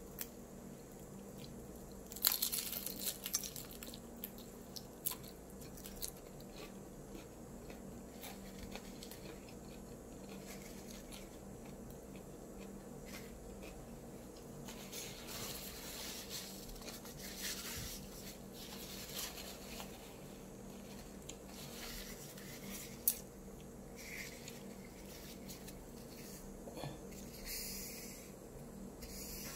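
Close-up eating of a fried egg roll: crisp crunches as the wrapper is bitten and chewed, coming in clusters a couple of seconds in, through the middle and again near the end. A faint steady hum runs underneath.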